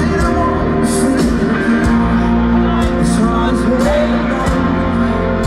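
A live rock-pop band playing a song through a PA, with drums and cymbals, electric and acoustic guitars, keyboards and a sung vocal line over held notes.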